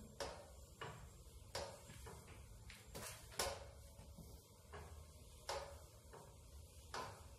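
Irregular sharp metallic clicks and knocks, about ten over the stretch, from a hand-worked roller bender as galvanized steel tube is rolled through it, some strokes ringing briefly.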